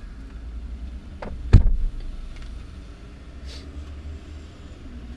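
Low steady rumble inside a parked car, with one heavy thump about one and a half seconds in, as a car door slams shut.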